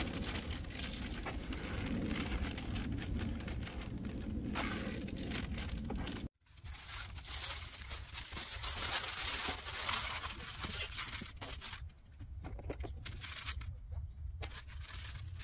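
Rustling and crinkling from items being handled, with scattered small clicks and crackles over a low rumble; the sound cuts off sharply about six seconds in and picks up again a moment later.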